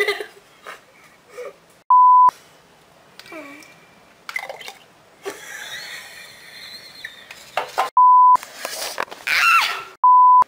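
Three loud, short 1 kHz censor bleeps, each under half a second long: about two seconds in, about eight seconds in, and just before the end. Between them are the girls' scattered vocal reactions, including a high-pitched cry shortly before the last bleep.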